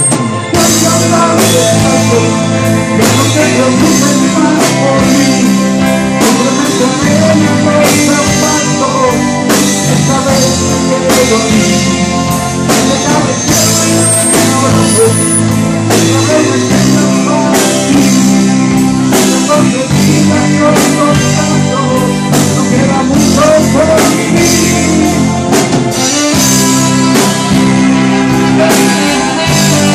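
Live pop-rock band playing: electric guitars, electric bass and a drum kit keeping a steady beat, with a singer.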